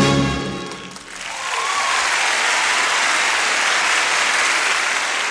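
Audience applauding as the band's final chord dies away in the first second, after which steady clapping holds.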